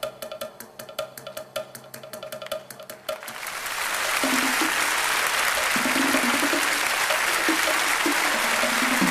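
Music with a quick, sharp percussive beat, then about three seconds in a crowd breaks into loud applause and cheering that swells and drowns it out, with shouts over the clapping.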